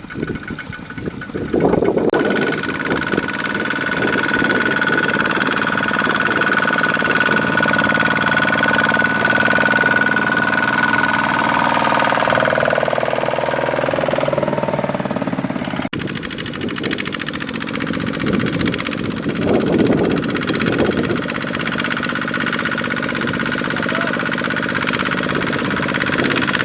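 Kubota single-cylinder diesel engine of a small farm tractor running, a steady knocking diesel clatter with a high whine over it that dips in pitch about twelve seconds in. The sound changes abruptly about two seconds in and again about sixteen seconds in.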